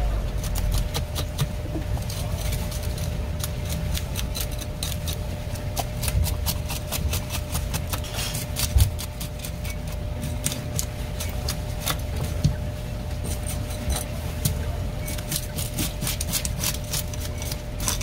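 Scales being scraped off a black porgy (black sea bream) with a blade: quick, irregular crackling scratches, stroke after stroke, over a steady low hum.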